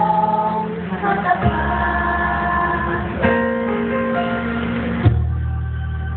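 A small group of women singing together into microphones over an instrumental accompaniment with a steady low bass line that changes note every couple of seconds. The voices thin out about five seconds in while the accompaniment carries on.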